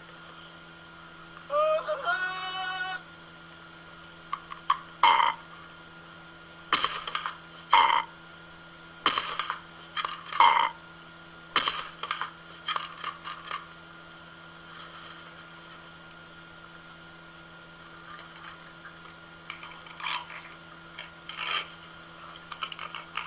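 Amazon parrot calling: a drawn-out call with wavering pitch about two seconds in, then a string of short, harsh squawks, loudest between about five and thirteen seconds in, with fainter ones near the end, over a steady low hum.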